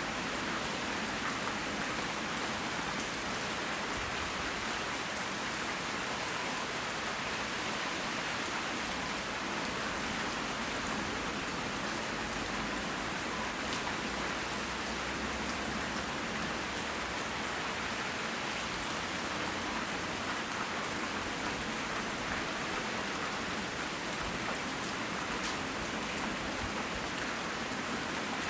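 Steady tropical rain falling and pattering on surfaces, an even hiss with many small drop ticks and no thunder.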